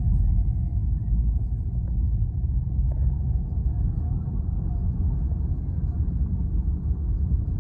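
Steady low rumble of road and wind noise inside a moving car, driving through strong dust-laden wind.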